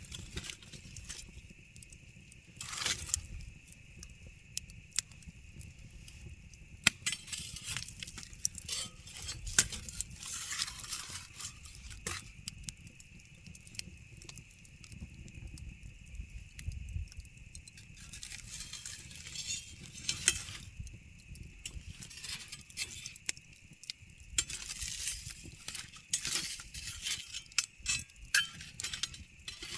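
Campfire crackling, with irregular sharp pops that come thicker near the end, over a steady high hiss.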